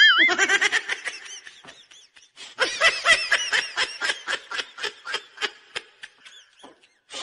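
High-pitched giggling laughter: a quick run of short bursts, about four or five a second, beginning a couple of seconds in, after a brief wavering squeal at the start.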